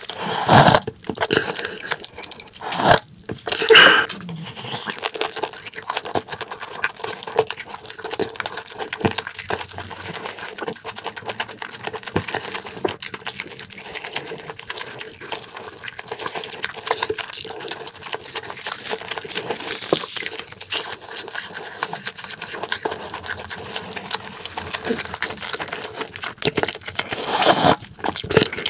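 Close-miked eating: chewing with wet mouth sounds, sips of soup from a metal spoon, and light clicks of spoon and wooden chopsticks against the pot and platter. A few louder sips stand out near the start, about three to four seconds in, and near the end.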